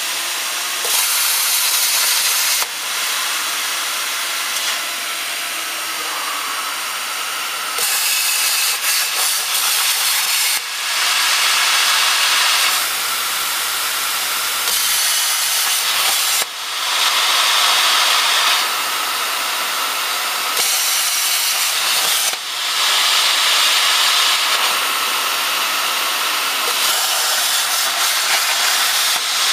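CNC plasma cutter's torch hissing loudly as the arc and gas jet cut steel sheet. The hiss comes in louder and quieter stretches, with brief dips where a cut ends and the next begins.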